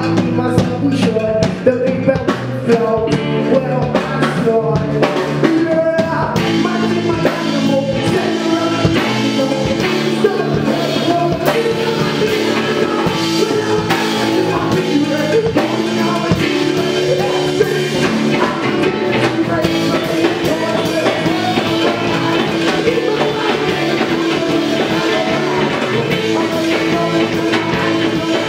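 Indie garage rock band playing live: a male singer over electric guitars and a drum kit, loud and continuous.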